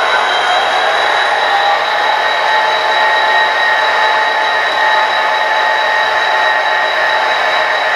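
HO scale model train with two SD70ACU locomotives running by: a steady whir with a few high, thin whining tones over it and almost no bass.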